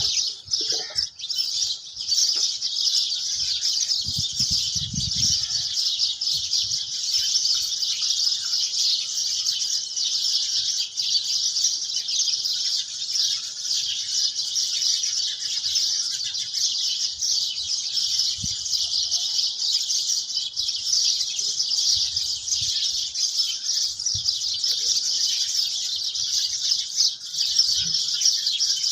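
A dense, steady chorus of high chirping that carries on without a break. A brief low rumble comes about four seconds in.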